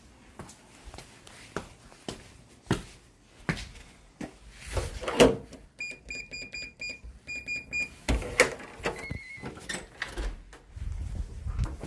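Footsteps, then about ten quick electronic beeps of a digital door lock's keypad as a code is entered, followed by a short tone from the lock as it unlocks.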